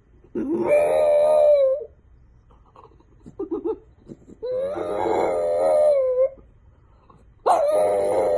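A dog howling: three long, held howls, each starting with a short rise in pitch and then wavering on one note, with a brief softer whine between the first two.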